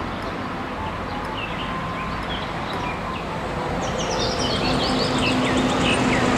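Street traffic noise with birds chirping, and a double-decker bus's engine running as the bus drives past; its steady low hum gets louder from about halfway through as the bus comes close.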